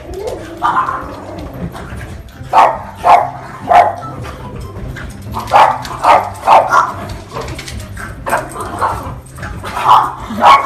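Dogs barking during rough play: about a dozen short, sharp barks coming in quick clusters of two or three.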